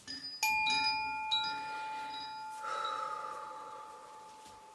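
A bell-like metal chime struck a few times in quick succession near the start, its ringing tones fading slowly.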